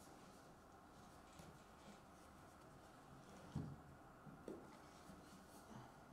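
Near silence: room tone, with two faint soft knocks from a rigid cardboard card box being handled as its tight lid is worked off, about three and a half seconds in and again a second later.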